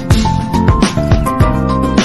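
Upbeat background music with a steady beat and a plucked melody.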